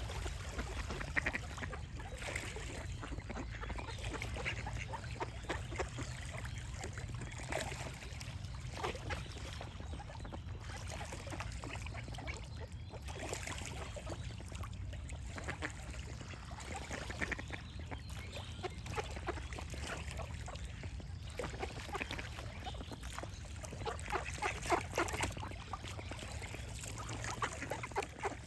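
Ducks quacking over and over in short, uneven runs of calls, busiest near the end, over a steady low background noise.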